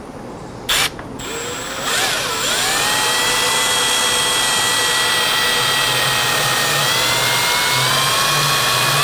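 Power drill spinning the oil pump of a late-1970s 350 V8 through an extension to prime it and push oil to its dry bearings. A sharp click just under a second in, then the drill speeds up over about a second into a steady whine that edges slightly higher in pitch about two-thirds of the way through.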